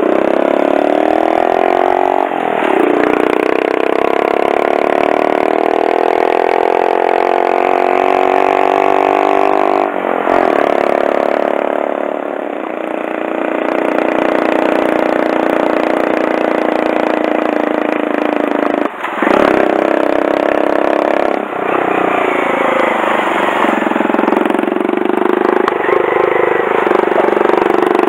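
Honda Monkey 125's single-cylinder engine under way, heard from the rider's seat. It climbs in pitch as it pulls, with brief breaks and drops where gears change about two, ten and nineteen seconds in, and runs steadily in between.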